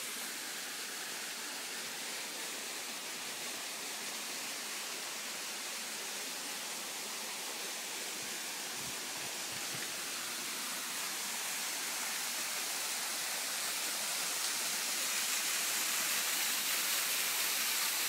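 Rushing water of Juney Whank Falls, a small mountain waterfall and its stream, running steadily. It grows louder over the second half.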